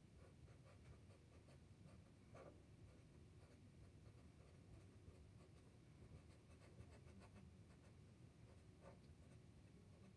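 Faint scratching of a black Sharpie permanent marker's felt tip on paper, drawing a run of short strokes heard as many small ticks.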